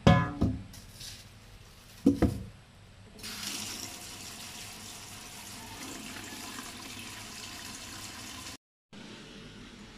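Stainless steel cooking pot clanking twice against a stainless sink, then a kitchen tap running steadily into the pot over bagged frozen chicken, with a brief break near the end.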